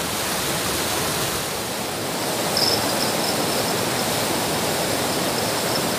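Water rushing over a small concrete weir, a steady even noise. About halfway through, the sound shifts slightly louder and a high, steady trill joins, coming and going.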